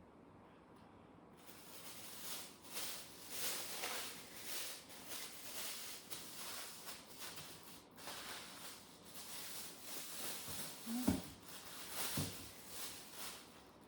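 Hands kneading stiff sugar fondant dough on a benchtop: a rhythmic rubbing and scuffing that swells and fades with each push, with a couple of dull knocks near the end.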